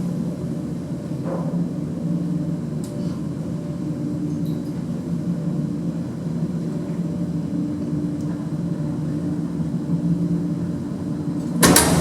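Lift running with a steady hum. Near the end a loud clatter comes as its doors open.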